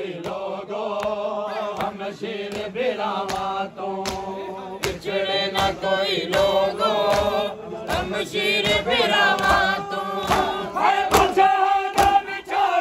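A group of men chanting a nauha, a Muharram lament, together, with steady regular slaps of hands beating on chests (matam) keeping time.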